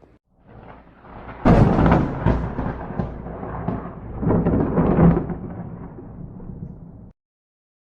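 Thunder: a loud crack about a second and a half in, then rumbling with a second swell around five seconds, cutting off suddenly near the end.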